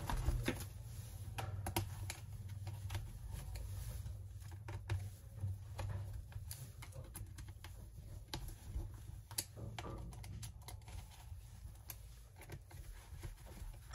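Scattered light clicks and taps as the bottom cover of a Dell Latitude 7400 laptop is handled and pressed back into place, over a low steady hum.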